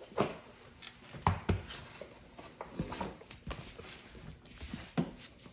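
Irregular knocks, scuffs and rustles close to the microphone, roughly one every second, as a black puppy moves about on the floor and a hand reaches for the camera.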